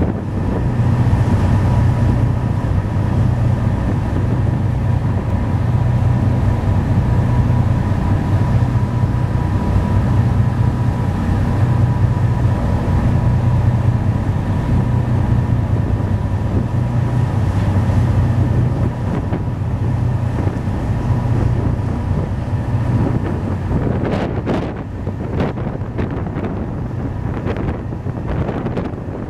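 Car ferry under way at cruising speed: its diesel engines make a steady low drone with a faint hum above it, under the rush of the churning wake. In the last few seconds wind gusts buffet the microphone.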